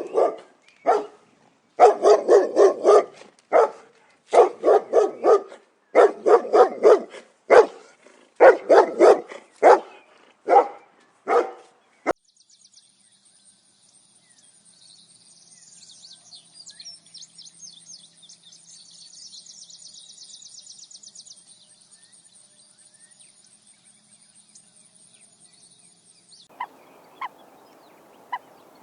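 A dog barking in quick volleys of loud barks for about twelve seconds. Then a faint, steady, high-pitched tone with a soft hiss, and a few sharp clicks near the end.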